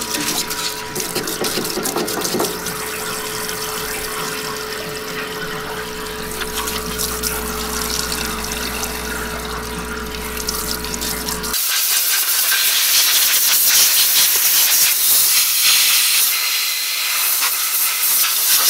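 A steady hissing spray with a machine hum underneath, from the cleaning of a freshly polished crankshaft and its oil holes. About eleven and a half seconds in, the hum stops abruptly and a louder, higher hiss takes over.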